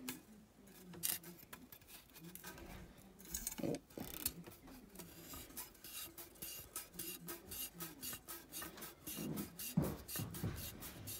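Screw-in muzzle brake/choke tube being unscrewed from a 12-gauge pump shotgun barrel by hand, its steel threads making a quick run of short rasping scrapes, about four or five a second.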